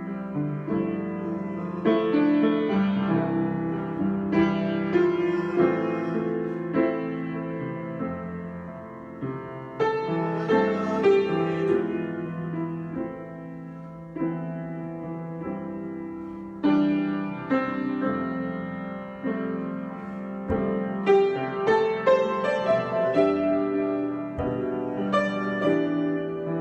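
Solo improvised piano music: chords and melody notes struck and left to ring and overlap, with louder chords struck now and then between quieter passages.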